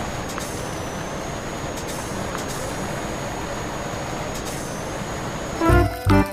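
A steady rushing hiss with a faint high whine running through it, cut off near the end by music with a beat.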